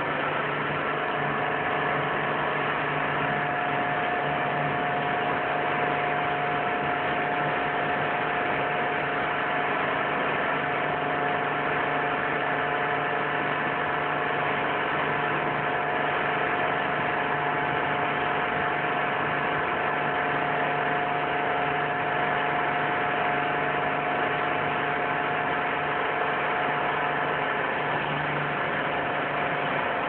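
Pressure washer running steadily under load while its lance sprays water, a constant motor and pump hum with a few fixed tones over a hiss of spray.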